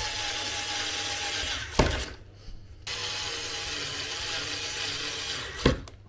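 Phillips screw being driven into a table top with a screwdriver, grinding steadily as it turns. The grinding stops briefly about two seconds in and then resumes, with a sharp click at each stop.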